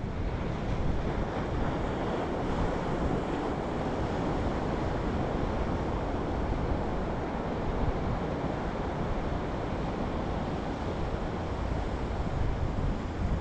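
Steady wash of sea surf on a sandy beach, mixed with wind noise on the microphone that adds an uneven low rumble.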